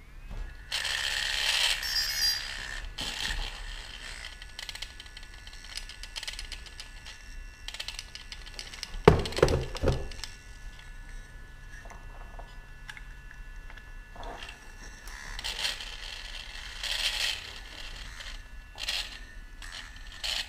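Clicks, scrapes and rattles of a quadcopter drone being handled and switched on, with a louder knock about nine seconds in. Faint steady high tones are heard from about five seconds in.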